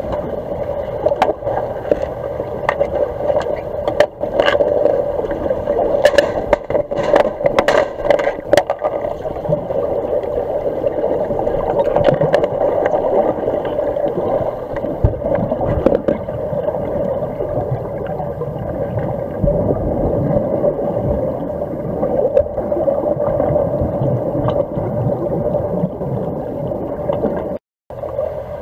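Underwater sound in a swimming pool, picked up by a submerged camera: a steady rushing hiss and hum with gurgling, and a cluster of sharp clicks and knocks about four to nine seconds in, typical of hockey sticks and the puck striking the tiled pool floor during underwater hockey play.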